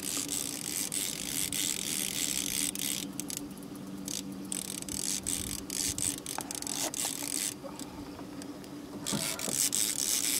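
Fishing reel drag buzzing as a hooked striped bass pulls line off, in several runs broken by short pauses.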